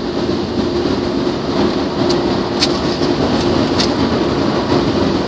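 Ryko Slimeline car-wash dryer blowers running, a steady rush of air with a steady hum under it, driving water across and off the windshield, heard from inside the car. A few faint ticks sound in the middle.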